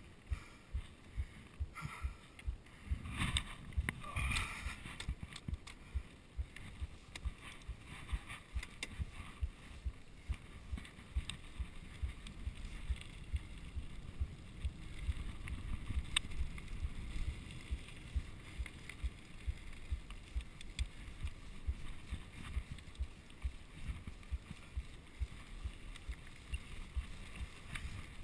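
Mountain bike rolling along a dirt singletrack: a low rumble of tyres on the trail, with the bike rattling and knocking over bumps several times a second.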